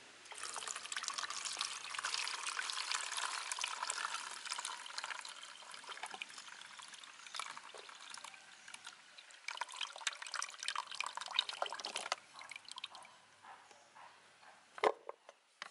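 Cooled galangal-and-tobacco decoction poured through a filter to strain off the liquid: a steady pour for about four seconds that tapers into trickling, a second pour from about ten seconds in, then a couple of knocks near the end.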